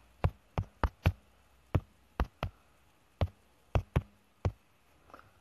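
About eleven sharp, irregularly spaced taps or clicks over five seconds, with quiet between them.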